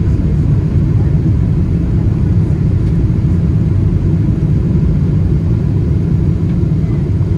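Steady low rumble of a Boeing 777-200 airliner heard from inside the cabin: engine and airflow noise.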